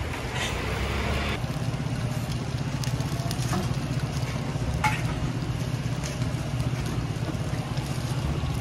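Wheel cakes cooking at a street stall: a faint sizzle of batter on a hot griddle mould over a steady low rumble, with a couple of light clicks in the middle.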